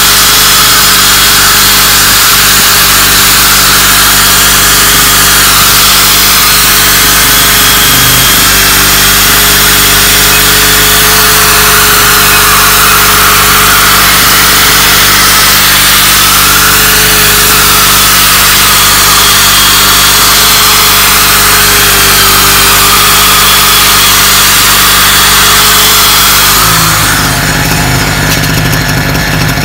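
Electric drill spinning a sanding pad against a wet plastic headlight lens, a steady whine that wavers a little as the pad is pressed and moved, stopping near the end. Under it, a steady engine hum from a running generator.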